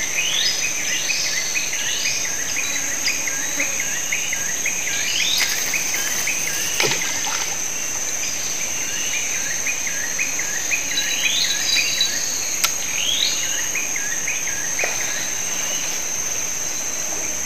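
Tropical forest ambience: a steady high-pitched insect drone with a short chirp repeated about twice a second, and bird calls rising in pitch over it. Two sharp clicks come about a third of the way in and again about three quarters of the way through.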